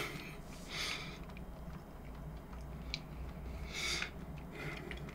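Quiet mouth sounds of a person eating close to the microphone: two short soft hissing breaths or mouth noises, about a second in and again near the end, with a light click between them.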